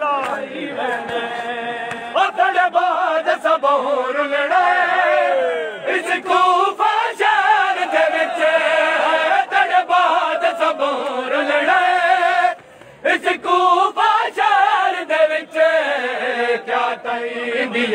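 A group of men chanting a Punjabi noha (Muharram-style lament) in unison without instruments, with sharp slaps sounding through the singing. The chant breaks off briefly a little past the middle and then resumes.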